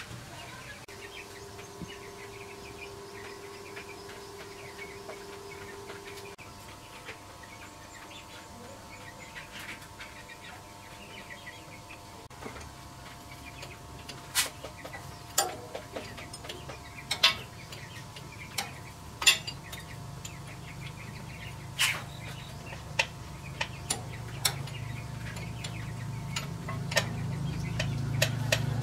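Irregular sharp metallic clinks of a hand tool against a small diesel engine, starting about halfway through, over background birds and chickens. A low hum grows louder near the end.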